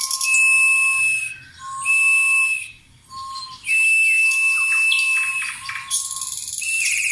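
Several small children blowing toy bird whistles together: overlapping steady whistle tones, one lower and one higher, starting and stopping, with a warbling trill above them. The whistling drops away briefly twice.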